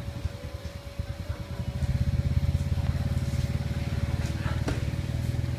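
A small engine running with a rapid low pulsing, growing louder about two seconds in, with a faint steady hum underneath.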